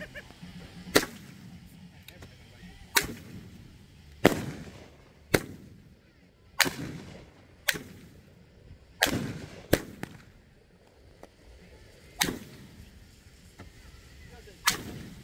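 Consumer aerial fireworks going off: about ten sharp bangs at uneven gaps of one to two and a half seconds, each trailing off briefly.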